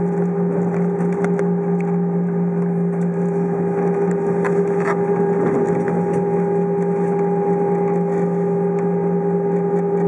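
Cabin noise inside an Airbus A320 taxiing: the engines running at idle, a steady hum of several held tones over an even rushing hiss, with a few faint clicks.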